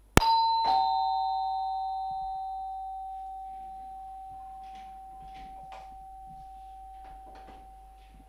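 Two-tone doorbell chime: a higher ding, then a lower dong about half a second later, ringing on and slowly fading over several seconds. Faint rustling movements can be heard in the second half.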